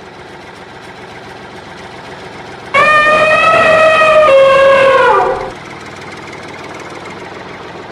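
Elephant trumpeting: one loud call of about two and a half seconds, starting about three seconds in and dropping in pitch as it ends.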